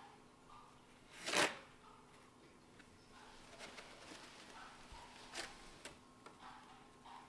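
Kittens' claws scraping and scrabbling on a corrugated cardboard cat scratcher: one loud scrape about a second in, then a few lighter scratches and clicks.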